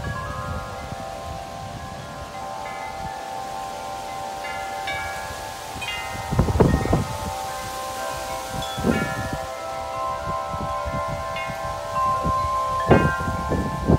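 Large tubular metal wind chimes ringing continuously in strong gusty storm wind, many long tones overlapping. Gusts buffet the microphone with low rumbles about halfway through, again a little later, and several times near the end.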